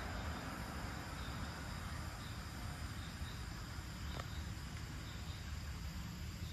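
Insects chirping steadily, with faint repeated high chirps, over a low steady rumble; a single short click about four seconds in.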